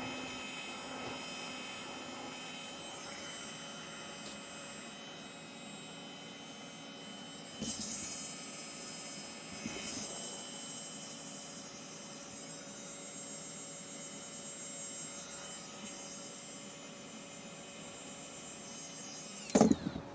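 Steady background hum with faint steady whining tones, and two brief handling noises about eight and ten seconds in.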